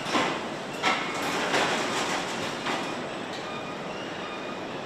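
Roller conveyor carrying aluminium engine blocks on pallets: a steady mechanical rumble, with several sharp metallic clanks and rattles in the first three seconds.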